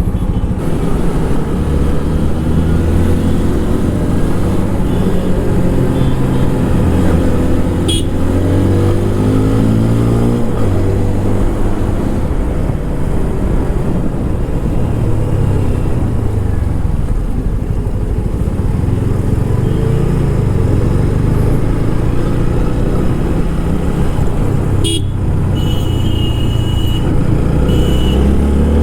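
Stock-exhaust TVS Apache RTR 160 4V single-cylinder engine pulling under way, its pitch rising and falling several times as the rider accelerates and eases off. There is a sharp knock about eight seconds in and another near the end, and a vehicle horn honks twice near the end.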